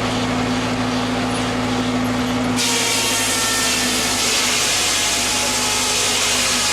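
Old sawmill machinery running with a steady hum. About two and a half seconds in, a loud hiss sets in suddenly and stays over it.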